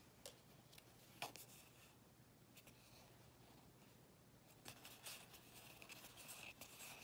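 Faint rustling and soft ticks of Pokémon trading cards being slid one past another in the hand: a few separate ticks in the first three seconds, then more frequent card slides from about five seconds in.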